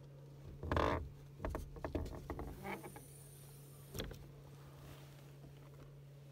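A loud knock about a second in, a clatter of short clicks and knocks, and one more knock about four seconds in, as the frosted rear window of a pickup's camper shell is unlatched and opened. A steady low hum runs underneath.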